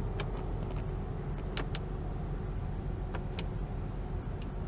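Several scattered light clicks of buttons and switches being pressed in the cabin of a 2018 Nissan Murano, over the steady low hum of the running car.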